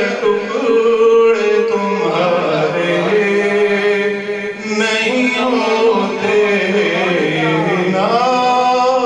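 A man singing Urdu devotional verse (a naat) solo and unaccompanied, with long notes held and ornamented by slow bends in pitch.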